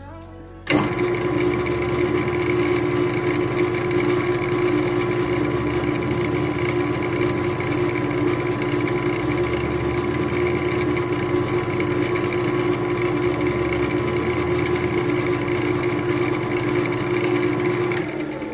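Workshop power tool's electric motor switched on with a click, running at a steady pitch, then switched off near the end and winding down.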